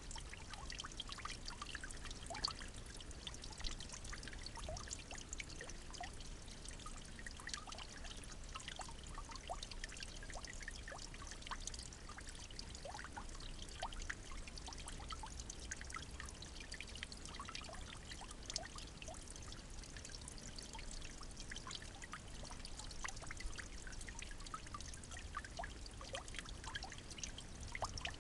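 Steady trickling water with many small, irregular drips and splashes.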